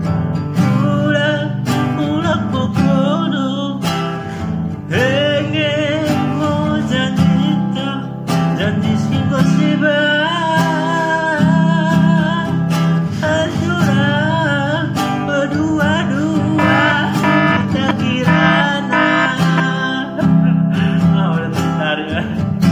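A man singing a Pakpak song in a wavering, vibrato-laden voice over a strummed acoustic guitar.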